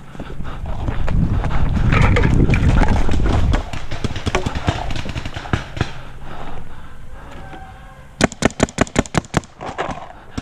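Running footsteps on dirt and leaves under a heavy rumble of movement for the first few seconds. Near the end comes a rapid string of about eight paintball marker shots, roughly six a second.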